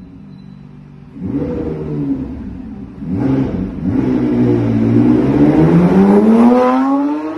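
Supercar engine idling low, then revved about a second in and again about three seconds in, and finally accelerating with its pitch climbing steadily as the car comes alongside, loudest near the end.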